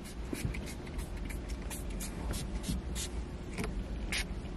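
Travel-size Febreze spray bottle being pumped again and again, each press giving a short hiss of mist, some in quick pairs.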